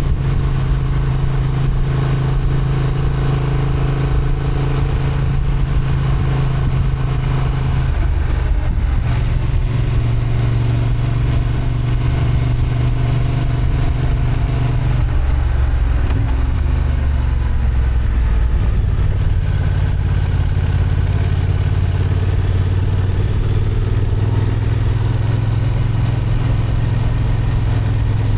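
Honda XL750 Transalp's 755 cc parallel-twin engine running steadily under way, with the engine note shifting in pitch about 8 seconds in and again about halfway through as the revs change.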